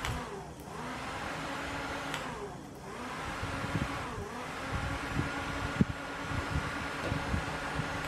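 Dual-head 12 V car fan's small DC motors and blades running with a steady whir, pitch rising as they come up to speed at the start. The pitch dips and recovers a couple of times.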